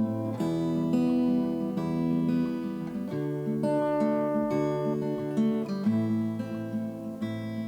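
Background music: an acoustic guitar playing a slow chord progression, the chords changing about every three seconds.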